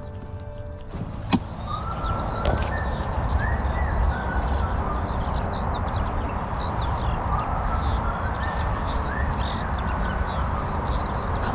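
Wind rumbling over the microphone outdoors, with birds singing many short chirps throughout and a single sharp click about a second in.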